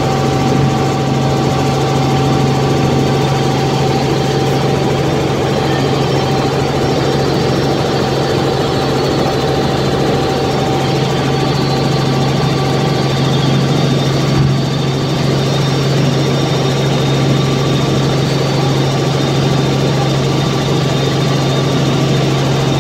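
Steady cabin drone of a Robinson R44 Raven II helicopter in cruise, heard from inside the cockpit: engine and rotor noise with a constant low hum and a fainter steady higher whine.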